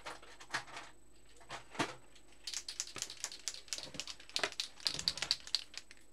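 Plastic marker pens clicking and clattering as a yellow Posca paint marker is fetched from a pen pot: a few separate clicks, then a quick, dense run of clicks for about three seconds.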